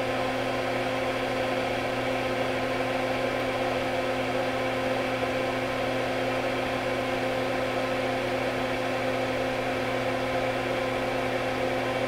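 Solder fume extractor fan running at a steady, constant pitch: a hum of a few held tones over an even rush of air.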